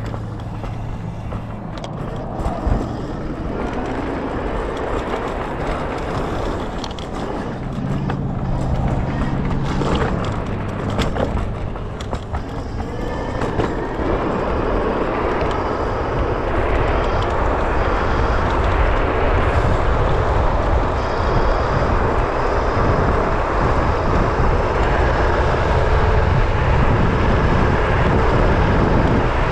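Riding noise from a Varla Pegasus electric scooter at speed: wind rushing over the microphone along with tyre and deck rumble. The rush grows louder and fuller about halfway through.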